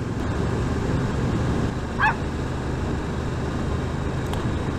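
Suzuki GSX-8S's 776cc 270° parallel-twin engine running steadily on the move, with a single short dog bark about two seconds in.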